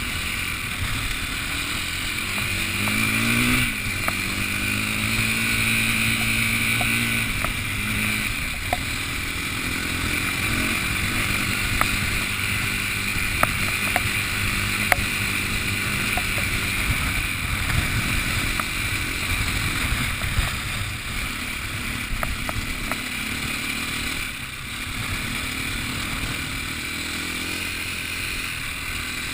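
An engine running and changing speed, its pitch rising and falling twice in the first ten seconds, over a steady rushing noise, with scattered sharp ticks in the middle.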